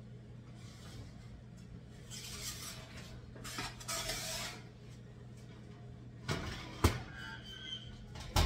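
A metal baking tray and utensil clanking on a gas stove's grates as a tray of hot English muffins is handled for turning: rustling and scraping, then sharp metal clanks about six and seven seconds in and again near the end. A steady low hum runs underneath.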